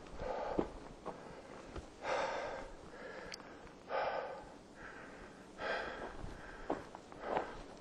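A hiker breathing hard under a backpack, with heavy exhales about every one and a half to two seconds, and footsteps scuffing and clicking on dirt and stone between them.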